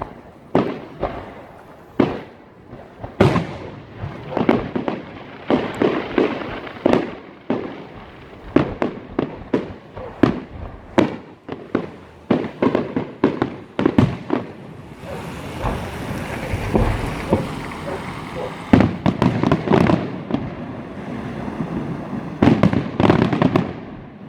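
Fireworks exploding in a rapid, irregular run of sharp bangs, several a second, with a denser stretch of crackling fireworks about two-thirds of the way through.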